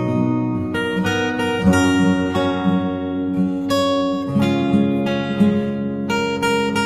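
Background music: acoustic guitar picking and strumming, with the chords changing every second or two.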